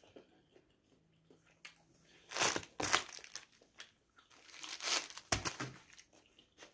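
Paper tissue crinkling and rustling as it is handled and unfolded, in a few short rustles with quiet between them.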